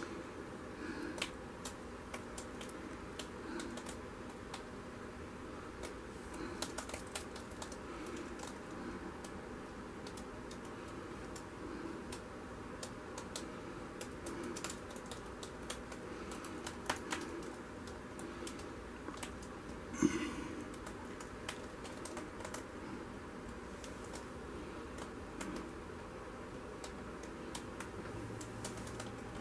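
Faint, irregular light clicks and taps from a stretched canvas being held and tilted in gloved hands over a plastic-lined tub, with one sharper click about two-thirds of the way through.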